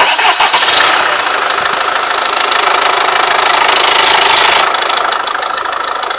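Engine starting up abruptly and running loudly with a knock, the fault the owner is checking; it eases off somewhat after about four and a half seconds.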